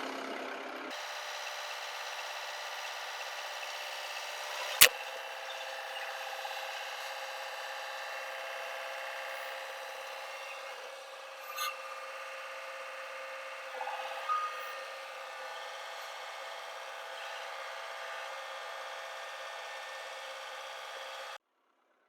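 Mahindra tractor's diesel engine running at a steady speed while its forks lift a sawmill head. A single sharp clank comes about 5 seconds in, with a couple of lighter knocks later. The sound cuts off abruptly near the end.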